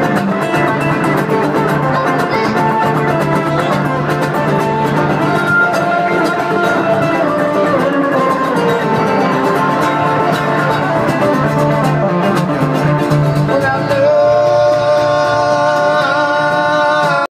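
Live acoustic duo: two guitars played together with singing. About three-quarters of the way through, a long held note sounds over the guitars.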